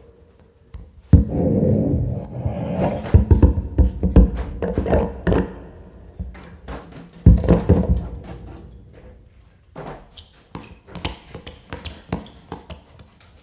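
Free-improvised music made of irregular, unpitched knocks and thuds with rushes of noise. There is a sudden loud hit about a second in and another around seven seconds in, then sparse light taps near the end.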